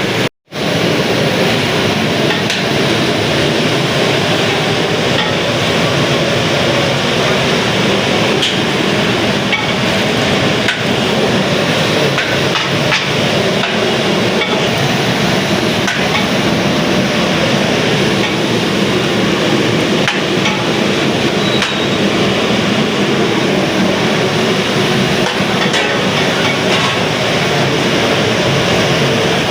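Loud, steady street-stall din with scattered knocks and clanks, which cuts out for a moment just after the start.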